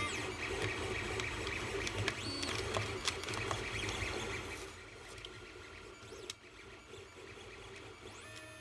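3D-printed PLA telescope parts handled and fitted together by hand: small plastic clicks and rubbing. It gets quieter about halfway through.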